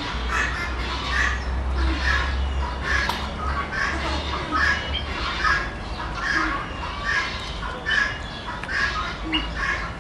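Bird squawking over and over in a steady rhythm, about one call every 0.7 seconds, over a steady low rumble.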